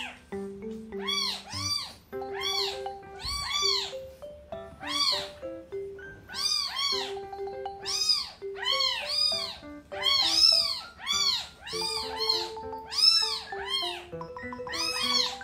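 Two-day-old kitten crying in repeated high-pitched meows, each rising then falling in pitch, about one or two a second, complaining loudly as it struggles to feed from its first bottle. Background music with simple sustained notes underneath.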